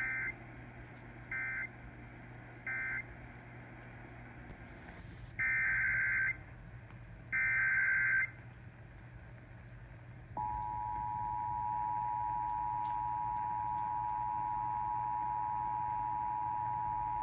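Emergency Alert System tones received off AM radio: three short bursts of warbling digital data tones, the end-of-message code, then after a click two longer bursts of the same data tones. About ten seconds in, the steady two-tone attention signal starts and holds, announcing the next alert. A low hum runs underneath.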